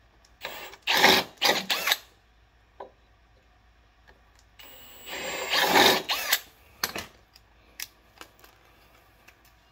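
Cordless power drill/driver running in two short bursts, about one and a half seconds each, as it bores or drives screws through a steel caster mounting bracket into a wooden workbench leg, followed by a few light clicks and knocks.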